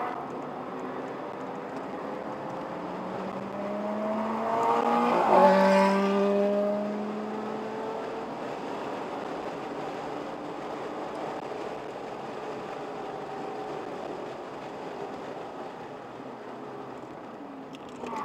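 Car engines at speed on a race track, heard from inside a car under way. About five seconds in, another car's engine grows louder and climbs in pitch, then drops in pitch as it passes close by, and fades as it pulls ahead.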